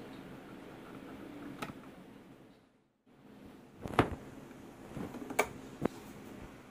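Screwdriver fastening a plastic lamp holder onto a plastic junction box: low scraping at first, then a few sharp clicks and knocks of plastic, the loudest about four seconds in. The sound drops out briefly near the middle.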